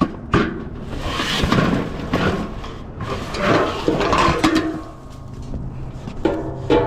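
Knocking and clattering of loose scrap being handled and shifted, with scraping bursts. Near the end a low hum comes in and music starts.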